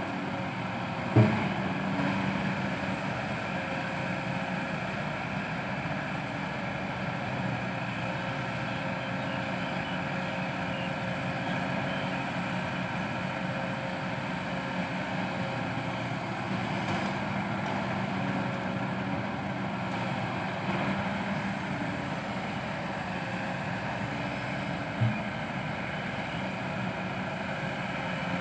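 Kobelco SK200-8 Super XM excavator's diesel engine running steadily as the machine digs and loads soil, with two sharp knocks, one about a second in and one near the end.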